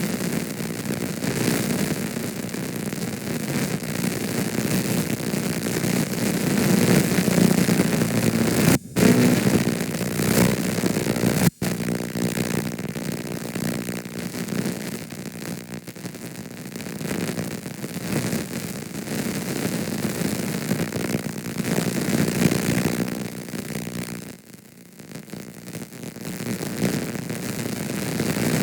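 Damaged VHS tape audio: dense, wavering hiss and distorted noise with a low hum-like band, cutting out abruptly for an instant about nine and twelve seconds in, and sagging briefly about two-thirds of the way through.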